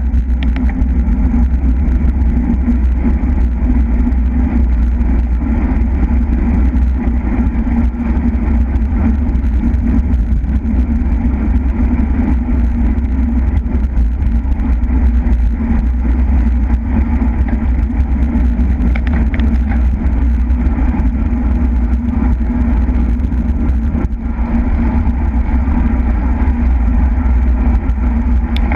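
Steady wind rumble on the microphone of a camera riding along on a racing bicycle at speed.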